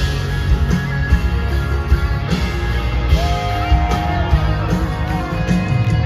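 Live country band playing through an arena PA, heard from within the crowd: a steady drum beat under acoustic and electric guitars, with a held melody line coming in about three seconds in.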